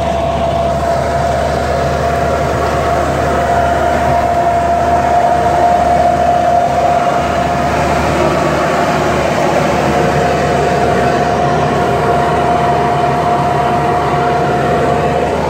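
Tractor running steadily under load as it pulls a plastic mulch layer with planter and fertilizer through dry soil, a constant mechanical din with a steady high whine throughout.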